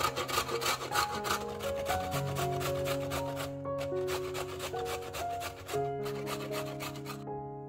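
A carrot being grated on a stainless steel box grater: quick rasping strokes, about four a second, with a short pause about halfway, stopping shortly before the end. Soft piano music plays underneath.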